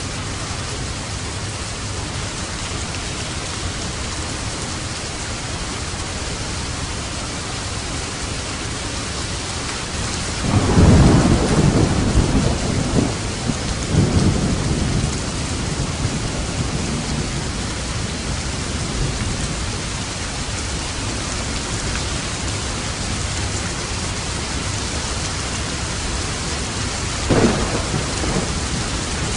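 Steady heavy rain hiss with thunder: a loud low rumble starting about ten seconds in, swelling twice over some five seconds, and a shorter, sharper clap near the end.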